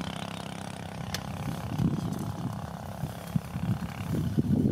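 Wind buffeting the microphone: a low, irregular rumble in gusts that grows stronger near the end, with one sharp click about a second in.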